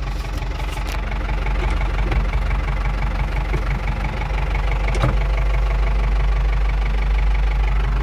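Ford 6610 tractor's four-cylinder diesel engine running steadily at idle after the tractor has braked to a stop, heard from inside the cab, with a single short click about five seconds in.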